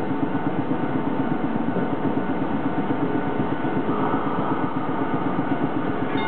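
Hankai Tramway Mo 601 streetcar standing at the stop with its on-board machinery running: a steady mechanical noise with a rapid, even pulsing.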